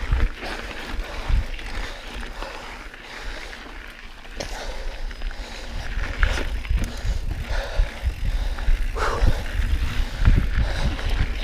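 Mountain bike ridden over a rough dirt trail: tyres crunching and the bike rattling with scattered knocks, over heavy wind rumble on the camera microphone.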